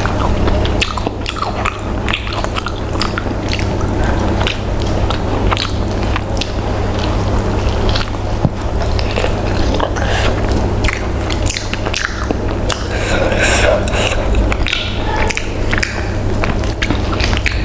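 Close-miked mouth sounds of eating: chewing and biting with many small, irregular wet clicks, over a steady low hum.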